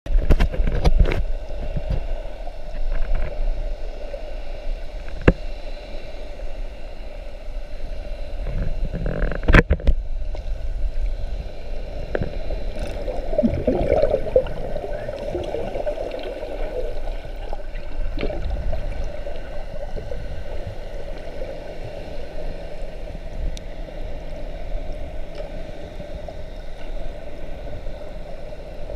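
Water heard from just below the surface: continuous muffled sloshing and bubbling around snorkellers, with a few sharp knocks in the first ten seconds and a steady low hum underneath.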